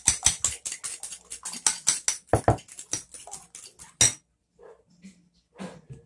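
Eggs being beaten with a utensil in a bowl: rapid, even clinking of metal against the bowl at about four to five strokes a second, which stops about four seconds in. After that come a few faint knocks and a low hum.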